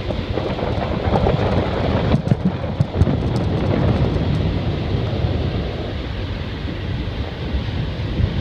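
Wind rushing over a phone's microphone on an open rooftop, a loud steady rumble, with a few faint clicks a couple of seconds in.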